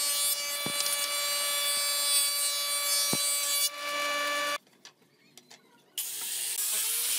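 Thickness planer running with a steady whine while it planes a pallet board, the cutting noise ending a little under four seconds in and the machine running on briefly before the sound cuts off. After a short near-silent gap, an angle grinder fitted with a sanding disc runs steadily from about six seconds in.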